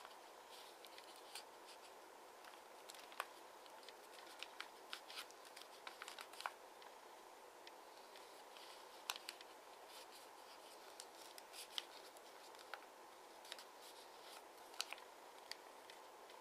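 Origami paper crinkling and crackling in short, irregular ticks as fingers crease and press the folded sheet, over a faint steady hiss.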